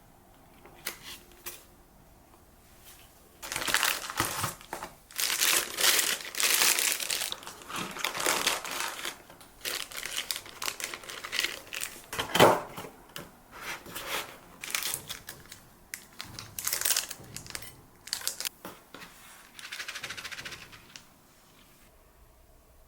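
Packaging being unwrapped and handled: irregular bursts of crinkling and rustling that start a few seconds in and stop shortly before the end, with one sharp knock about halfway through.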